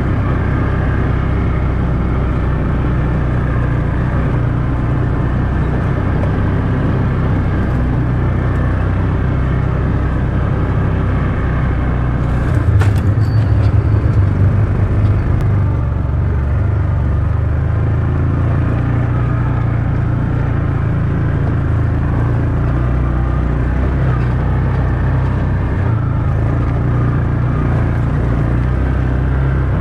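Off-road UTV engine running at a steady low speed as the vehicle crawls over a rough, rocky trail. About halfway through there is a sharp knock, and the engine sound swells for a couple of seconds before settling again.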